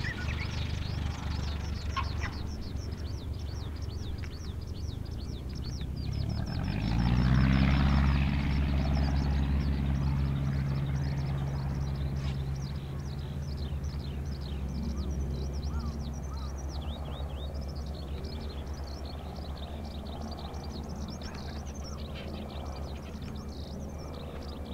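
An engine running steadily that revs up about six and a half seconds in, then holds at a higher pitch while slowly fading. Many birds chirp throughout.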